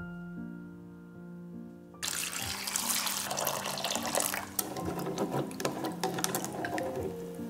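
Water running from a tap into a sink, with small splashes and clatters. It starts suddenly about two seconds in and eases off near the end.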